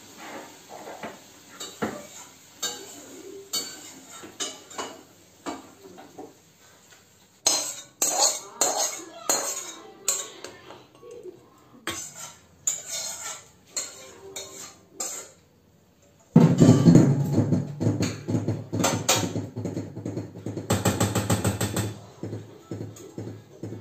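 A metal ladle clinking and scraping against a metal wok and a steel bowl as curry is served out, in a run of short clinks. About two-thirds of the way through, loud background music with a beat cuts in over it.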